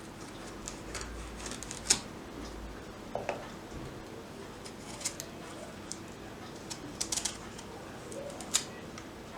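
Kitchen food-prep handling sounds: scattered sharp clicks and taps of utensils, the loudest about two seconds in and a quick run of three around seven seconds, over a steady low hiss.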